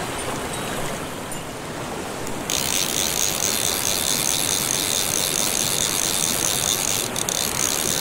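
A fly reel's click-and-pawl ratchet buzzing steadily from about two and a half seconds in as line runs through it, over the rush of a mountain stream.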